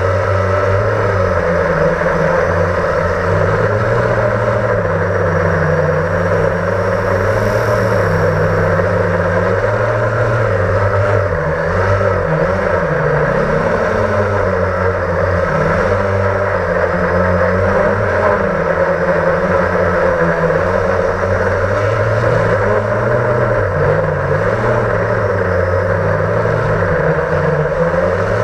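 Blade 350 QX quadcopter's electric motors and propellers buzzing steadily, heard from a camera mounted on it, the pitch wavering up and down with the throttle.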